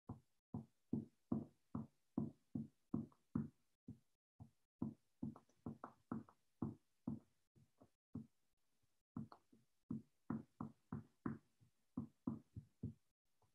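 A hard seed tapped repeatedly into a soft clay slab on a worktable to stamp a texture. It makes a faint series of dull taps, about two or three a second, with a brief lull a little past the middle.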